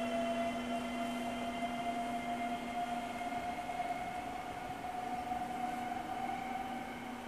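Slovenian Railways Siemens Desiro electric multiple unit pulling away. Its traction drive gives a steady whine that rises slightly in pitch as it gathers speed, fading a little as it moves off.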